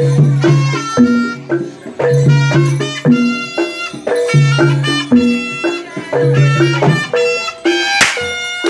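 A traditional East Javanese jaranan band playing live: drums and struck metal percussion in a repeating pattern, with a reedy wind melody over them. A sharp crash comes near the end.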